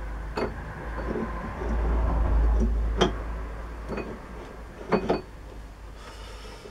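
Turnell & Odell lathe running with its change gear train turning on newly fitted spacer sleeves: a steady low hum, louder about two seconds in, with a handful of sharp metallic clinks.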